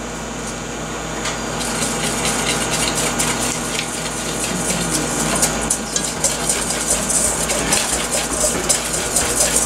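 Wire whisk beating rapidly against a stainless steel mixing bowl, a fast, continuous scraping clatter that picks up about a second and a half in. It is stirring milk into a flour-and-cornstarch base to make a smooth, lump-free cream sauce base.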